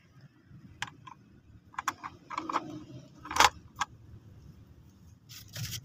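Light clicks and knocks of toy vehicles being handled and set down, a dozen or so scattered taps with one sharper knock about three and a half seconds in.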